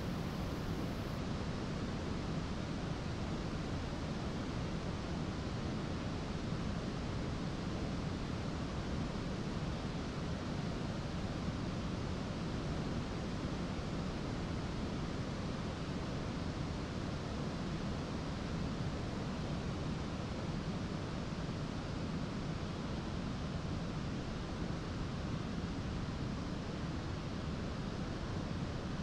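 Single-engine piston aircraft engine idling on the ground with the propeller turning, a steady, even rumble and rush that does not change.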